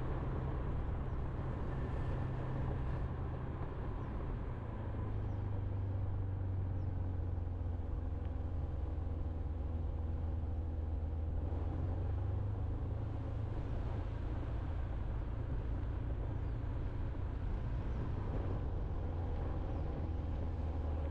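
Motorbike riding along a road: a steady engine drone with wind rumble on the microphone.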